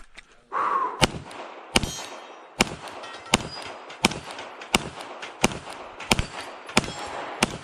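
Glock 34 9mm pistol firing a steady string of about ten shots, roughly one every 0.7 seconds, on a USPSA competition stage.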